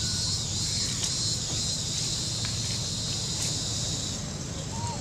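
Steady high-pitched drone of insects, stopping about four seconds in.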